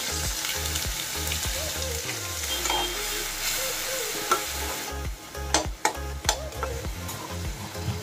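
Food sizzling steadily as it fries in hot oil in a pan, with a metal spoon stirring it; several sharp knocks of the spoon against the pan come in the second half.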